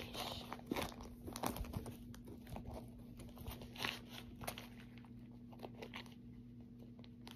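Faint rustling and crinkling of a wallet and bag being handled and searched, with scattered light clicks, thinning out toward the end.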